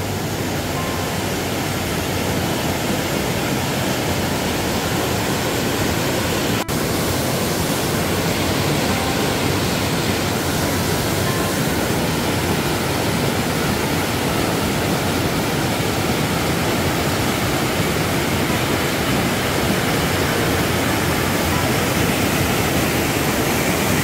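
Mountain stream water rushing over a rocky cascade into a deep pool, a steady, loud whitewater rush. It is broken once by a momentary dropout about seven seconds in.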